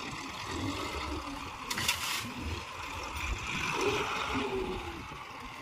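Mahindra tractor with a front loader running as its hydraulic arm raises the bucket and tips a load of sand into a trolley, the sand pouring out with a rushing hiss near the end. A brief sharp hiss about two seconds in.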